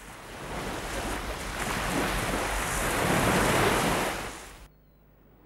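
Sea surf breaking against rocks: a rushing wash of surf that swells to a peak and then cuts off suddenly about four and a half seconds in.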